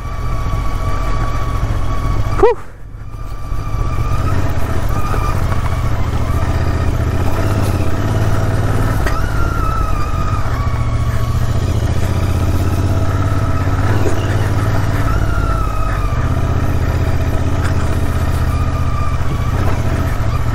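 Royal Enfield Interceptor 650's parallel-twin engine running steadily as the motorcycle rides a rough off-road track. About two and a half seconds in there is one sharp knock, the loudest sound, after which the engine note drops briefly before picking up again.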